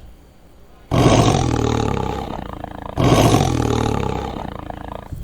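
Tiger roaring twice. Each roar starts suddenly and fades away over about two seconds.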